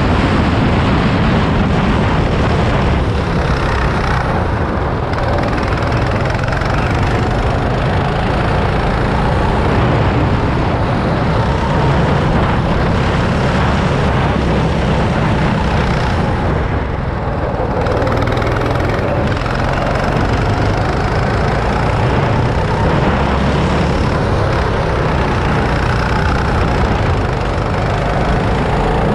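Go-kart's small petrol engine running at speed, heard from on board, its note rising and falling as the kart accelerates and eases off through the corners.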